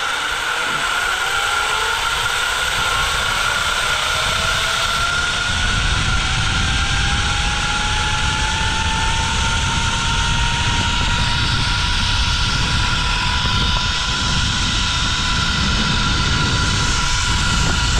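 Zip line trolley pulleys running along the steel cable at speed: a whine that rises in pitch over the first several seconds as the rider gathers speed, then holds steady, over heavy wind buffeting on the microphone.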